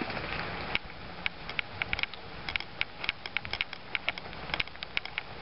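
Water dripping from rain-soaked trees, irregular sharp ticks several a second over a steady hiss.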